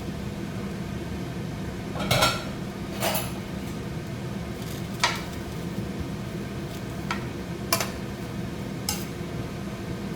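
A metal utensil stirring vegetables in a cooking pan, clinking and scraping against it about six times at uneven intervals, the loudest about two seconds in, over a steady low hum.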